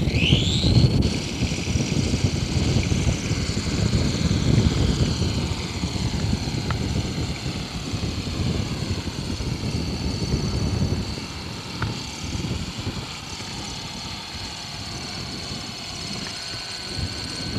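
Scratch-built electric RC helicopter, driven by two 540 motors run flat out: the motors wind up with a rising whine in the first second, then hold a steady high whine over a rushing low noise as the helicopter lifts off and flies. It grows fainter over the last few seconds as it climbs away.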